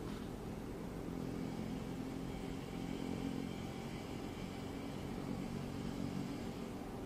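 A steady engine drone with a low hum, a little louder in the first few seconds and easing off near the end.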